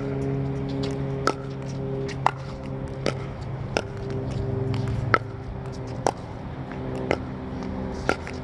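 Pickleball rally: sharp pops of paddles hitting the hollow plastic ball and the ball bouncing on the court, about one a second, over a steady low drone.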